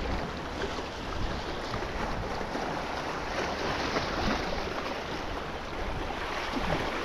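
Sea surf washing against the shore with wind blowing across the microphone: a steady rushing noise.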